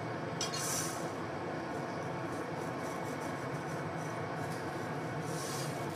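Steady roar of a glassblowing studio's gas burners and blowers: a constant low hum under even noise, with two brief soft hisses, one about half a second in and one near the end.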